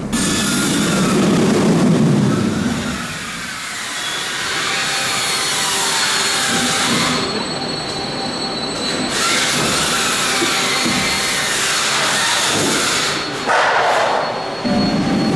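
Roller coaster train of a B&M launched shuttle wing coaster running on its steel track: a steady wheel roar with a whine that rises and falls several times.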